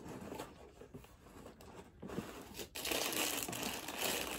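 Tissue paper rustling and crinkling as it is folded back from shoes inside a cardboard shoebox, busier and louder in the second half.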